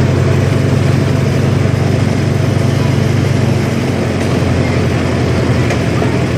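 Engine of a small amusement-park ride train running steadily, a low, evenly pulsing drone heard from aboard the moving train.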